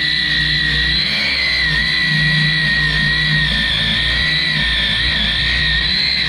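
DeWalt 20V cordless angle grinder with a sanding wheel grinding down weld high spots on a metal wood-stove plate. A steady high whine with a rasping grind, its pitch dipping slightly now and then as the disc is pressed into the metal.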